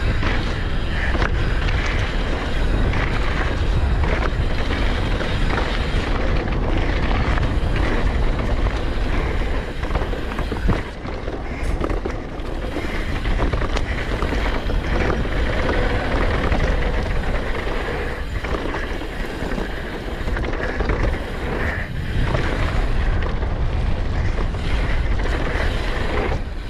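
Wind rushing over the camera microphone and tyres rolling over a dirt trail as a downhill mountain bike descends, with scattered knocks and rattles from the bike over bumps.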